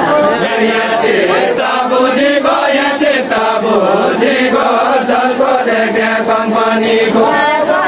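Voices singing a Nepali Deuda folk song, a chant-like melody with held, wavering notes.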